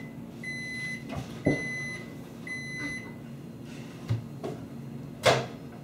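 Microwave oven beeping: a run of long, steady beeps about one a second that stops about three seconds in, over a low steady hum. A few knocks follow as someone climbs onto the kitchen counter, the loudest a sharp thump about five seconds in.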